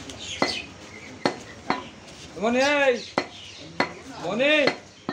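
A butcher's knife chopping beef on a wooden log chopping block: about six sharp knocks of the blade striking through the meat into the wood, spread irregularly. Two drawn-out calls, each rising then falling in pitch, sound over it about halfway through and near the end, louder than the chopping.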